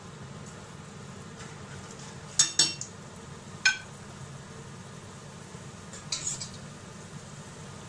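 Stainless steel cookware clinking with a short metallic ring as utensils knock against a metal pot and mixing bowl: two quick clinks about two and a half seconds in, a third a second later, and a softer cluster of clinks about six seconds in, over a steady low hum.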